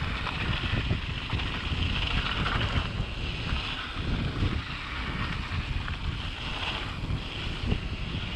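Wind rushing over an action camera's microphone on a mountain bike riding down a dirt trail at about 20 km/h, a steady rumble mixed with the hiss of tyres on loose dirt and frequent small knocks from the bike.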